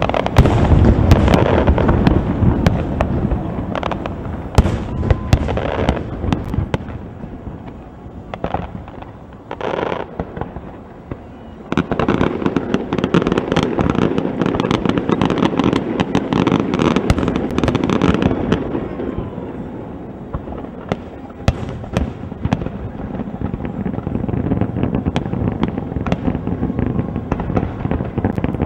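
Aerial firework shells bursting in a dense barrage of booms and crackles. It eases to a lull about a third of the way in, then picks up again into another heavy volley.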